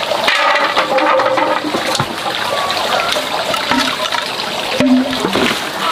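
Steady rushing of running water, with a couple of light knocks from hollow bamboo poles being handled, about two seconds in and again near the end.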